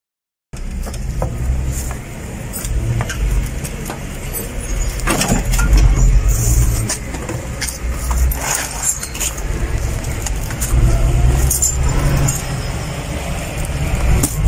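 Outdoor street sound from the field footage: a steady low rumble of traffic and vehicles with scattered light clicks and rattles of handling, starting abruptly about half a second in.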